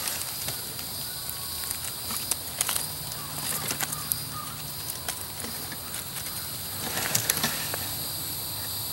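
Rustling and small clicks and snaps of handling and picking a mushroom in the forest-floor leaf litter, busiest about seven seconds in, over a steady high insect drone.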